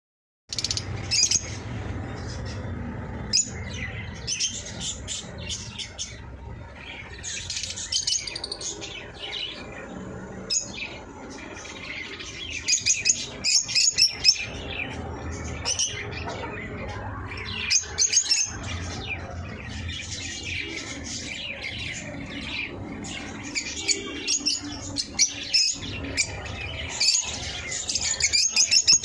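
Eye-ring lovebirds calling: a steady stream of short, high, shrill chirps, some in quick runs, with a low steady hum underneath.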